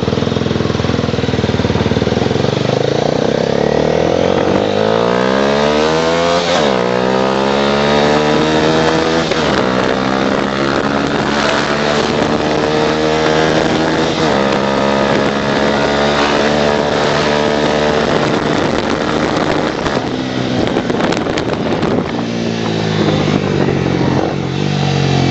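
Honda CBR250R single-cylinder engine through a Leo Vince LV One Evo II aftermarket exhaust, accelerating while ridden. Its pitch climbs and drops back at each upshift, about three times in the first half, then holds steady before easing off and picking up again near the end.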